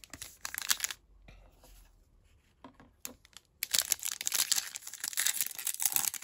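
Trading-card pack wrapper being torn open and crinkled in the hands: a few crackles in the first second, then a dense run of crinkling and tearing from about three and a half seconds in.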